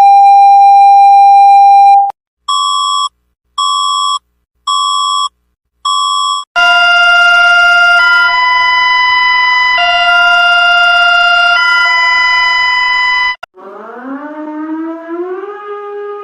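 Synthesized Emergency Alert System-style alarm tones: a loud steady tone for about two seconds, then four short beeps about a second apart. Then a loud chord of several tones that switches back and forth between two chords for about seven seconds. Near the end comes a quieter tone sliding upward and wavering.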